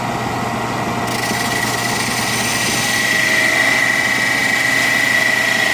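Wood lathe running with a steady motor hum. From about a second in, a loud hissing cut with a high whine joins it as a tool works the spinning wooden stick.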